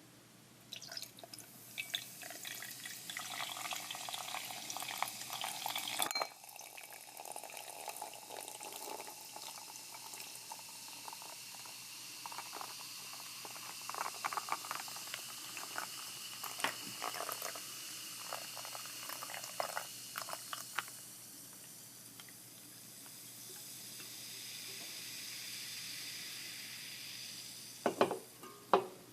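A carbonated energy drink is poured into a glass for about five seconds, and the pour stops abruptly. The drink then fizzes in the glass with a crackle of many small popping bubbles, fading to a soft hiss. Two sharp knocks come near the end.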